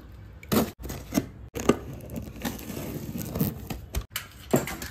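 Packaging of a home theatre system being handled during unboxing: irregular rustling and scraping with several short knocks.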